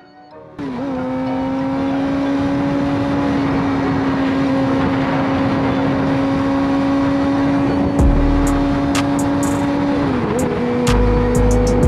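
2022 Suzuki GSX-R750's inline-four engine at a steady cruise on the highway, holding one even pitch that dips briefly about ten seconds in and then settles again. Wind rushes over the helmet-cam microphone throughout, with low buffeting gusts.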